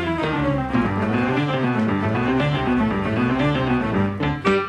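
Background music with a moving melody, breaking off briefly near the end.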